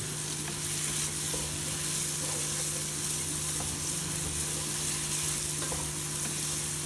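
Onion-tomato masala sizzling in hot oil in a non-stick pot while a wooden spoon stirs it, with a few faint clicks of the spoon against the pot; this is the masala being fried down.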